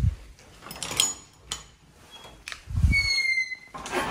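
A door being handled: a thump, a few sharp clicks, then another thump about three seconds in, followed by a short high squeak that slides slightly down in pitch.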